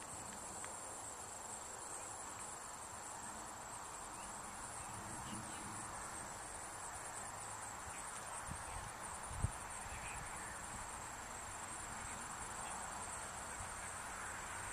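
Steady chorus of insects such as crickets, a high thin drone with a pulsing trill just above it. A single short low thump sounds about nine and a half seconds in.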